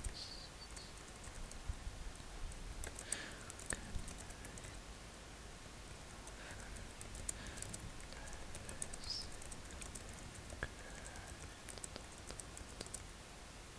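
Soft, irregular tapping on a computer keyboard, close to the microphone.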